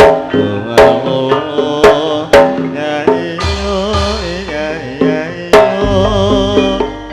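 Javanese gamelan playing tayub dance music: sharp hand-drum (kendang) strokes over ringing bronze metallophones and a wavering melody line. The drum strokes pause for a couple of seconds near the middle while a deep low tone swells, then resume.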